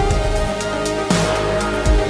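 Electronic background music with held synth tones and a deep bass beat about once a second.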